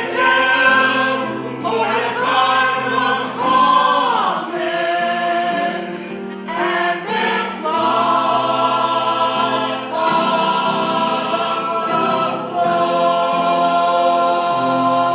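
A group of voices singing a song together, with accompaniment and long held notes.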